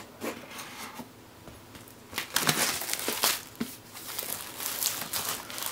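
Plastic shrink wrap being torn open and peeled off a cardboard graphics-card box. A few light taps come first, then crinkling in bursts from about two seconds in.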